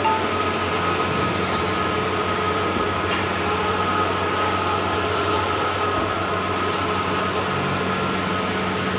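Large-format outdoor digital printing machine running, a steady mechanical hum and whir that holds at one level throughout.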